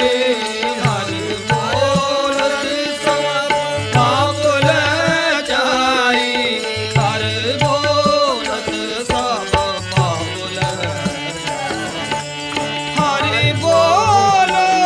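Kirtan music: a harmonium playing a melody with tabla drums keeping a steady rhythm, and a voice singing along in gliding phrases.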